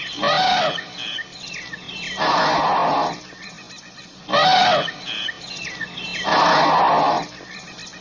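African elephant calling: four loud calls, each under a second long, about two seconds apart, with faint chirps in the gaps between them.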